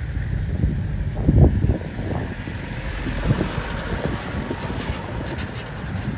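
Wind buffeting a phone microphone outdoors: an uneven low rumble in gusts, loudest about a second and a half in.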